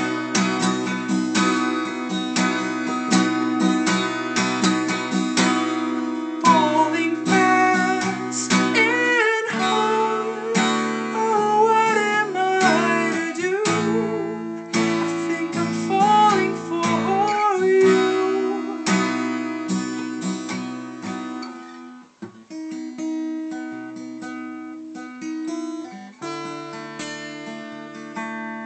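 Steel-string acoustic guitar strummed in a steady chord rhythm, with a man's singing voice over it from about six seconds in until about nineteen. From about twenty-two seconds the voice is gone and the guitar plays quieter and sparser.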